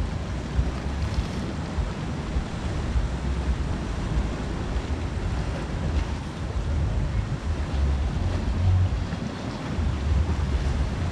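Sea surf washing against a rocky shore, with gusts of wind buffeting the microphone in an uneven low rumble.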